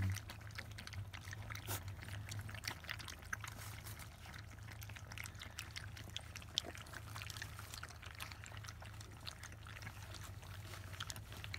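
A litter of young Labrador Retriever puppies lapping and smacking at soft weaning food in a shared dish: a steady stream of quick wet clicks and slurps, over a low steady hum.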